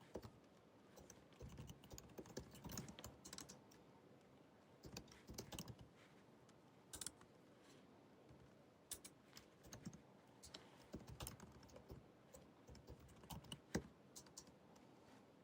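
Typing on the built-in keyboard of a 2019 16-inch MacBook Pro: soft, quick key clicks in irregular runs with short pauses between bursts.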